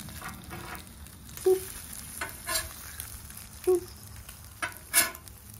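Eggs and pancake batter sizzling steadily on a hot steel flat-top griddle, with a metal spatula scraping and clicking against the griddle about six times as the eggs are flipped.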